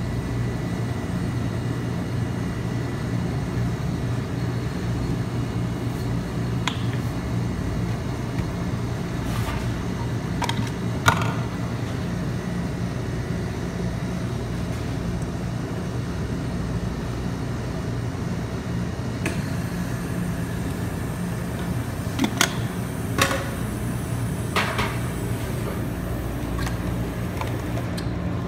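Steady electric hum of a rolled ice cream machine's refrigerated cold plate, its compressor and fan running. A few light knocks and clicks sound over it, the loudest about eleven seconds in and a small cluster past twenty seconds.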